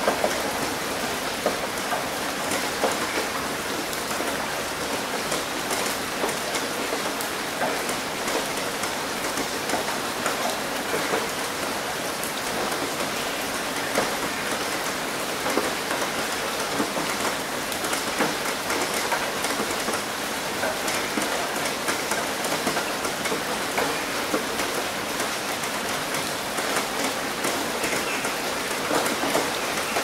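Steady rain falling on a roof: a continuous hiss with many sharp individual drop impacts scattered through it.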